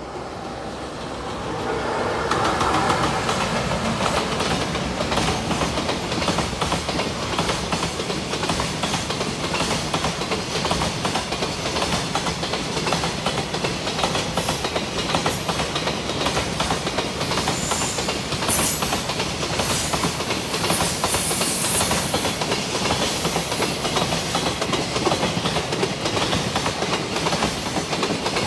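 Freight train hauled by an EF210 'Momotaro' electric locomotive passing close by: growing louder over the first couple of seconds as it arrives, then a long steady run of wagon wheels clattering over the rail joints. Brief high-pitched wheel squeals come through in the second half.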